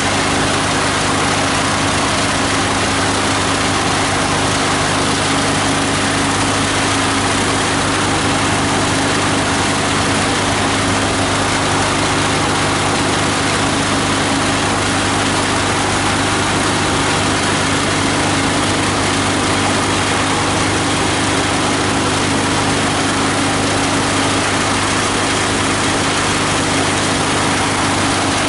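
An 18 hp diesel engine driving a multi-blade plastic grinder, running steadily: an even hum with a constant hiss over it, unchanging throughout.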